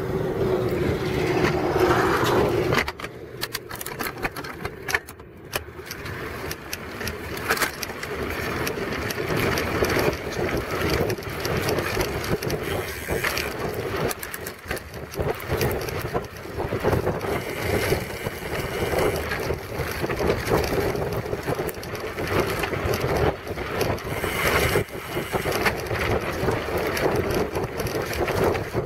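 Mountain bike riding along a dirt trail, heard from a camera mounted on the bike: the knobby tyre rolling and crunching over dirt, with frequent clicks and knocks of the bike jolting over bumps and wind buffeting the microphone. The noise drops briefly a few seconds in, then rises again as the bike picks up speed.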